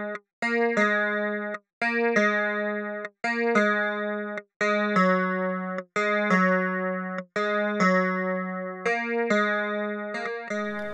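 Instrumental music: a short figure of a few plucked-sounding notes, repeated about every second and a half, with a brief break of silence before each repeat.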